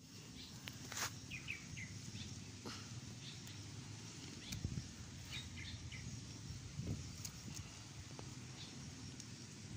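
Small birds chirping outdoors in short high runs of quick chirps, with rustling and a few soft thumps as leaves brush and the phone is moved through the plants.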